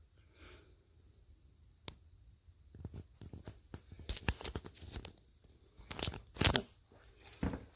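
Scattered small clicks and short rustles of hands handling things close to the microphone, sparse at first and busier through the middle, with the loudest couple about six seconds in.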